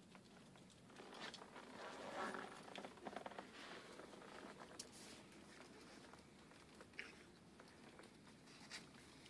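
Near silence with faint crunching and rustling of snow, mostly in the first few seconds, then a few soft isolated clicks.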